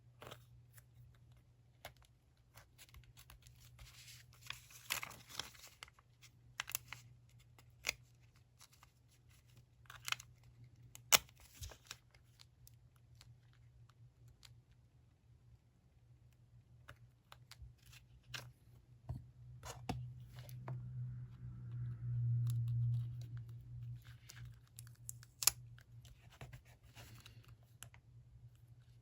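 Paper and stickers being handled at a desk: scattered taps, clicks and rustles of paper. A low motor-like hum swells for a few seconds about two-thirds of the way through.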